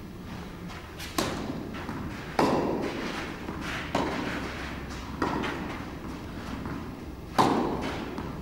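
Tennis rally: rackets striking the ball back and forth, about five sharp hits a second or more apart, each echoing in a large indoor hall.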